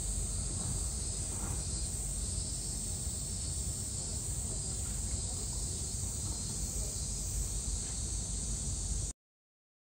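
Cicadas singing in a steady chorus over a low background rumble; the sound cuts off suddenly about nine seconds in.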